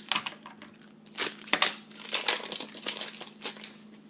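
Crinkly rustling as wrestling trading cards and their foil pack wrapper are handled between cards: about six short, sharp crinkles.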